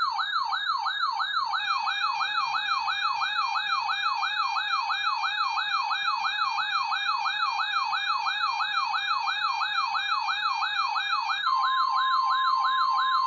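Electronic siren wailing rapidly up and down, about three sweeps a second. About 11.5 s in, a steady single tone near 1 kHz joins it: the NOAA Weather Radio warning alarm tone that comes before a broadcast warning.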